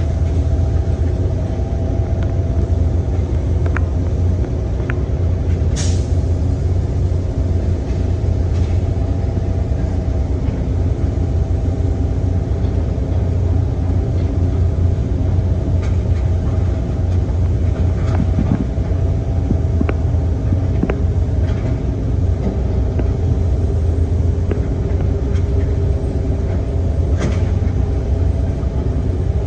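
Heavy diesel machinery engine running steadily with a deep drone, with a few sharp metallic knocks, the clearest about six seconds in.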